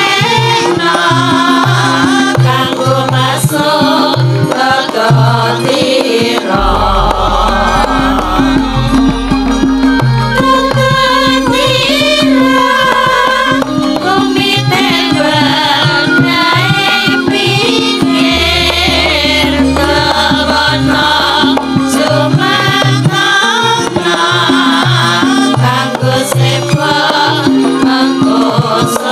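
Javanese gamelan playing, with kendang drum patterns and wavering singing over the metallophones.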